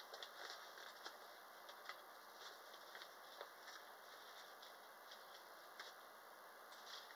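Near silence with faint, scattered light ticks and rustles from hands handling a small wrapped item.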